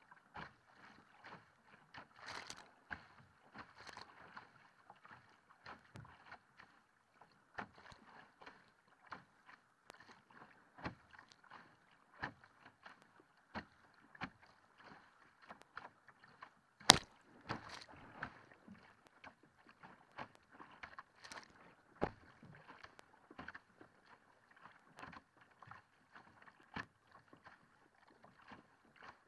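Water splashing and slapping against the hull of a Think Uno Elite surf ski as it is paddled through choppy sea. Irregular sharp slaps and knocks of chop and spray are heard, with one much louder knock a little past halfway.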